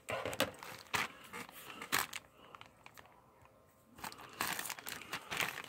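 Clear plastic toy bag crinkling and rustling as hands handle it and pull it open, in bursts with a lull of about a second and a half in the middle.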